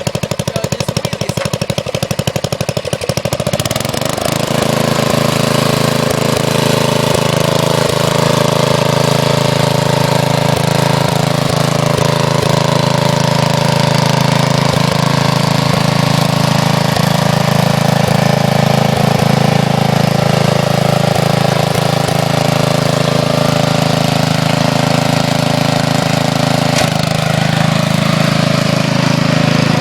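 A 12 hp MTD lawn tractor's engine idling with even firing pulses, then throttled up about four seconds in and running steadily at a higher speed.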